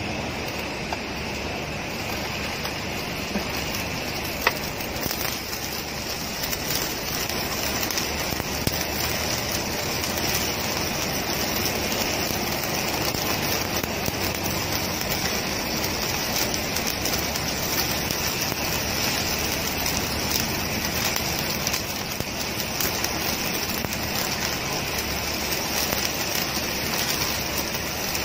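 Stick (shielded metal arc) welding: the arc crackles and sizzles steadily as a vertical bead is run up a seam in steel plate. A sharp tick comes about four and a half seconds in, and the crackle is a little louder from about six seconds on.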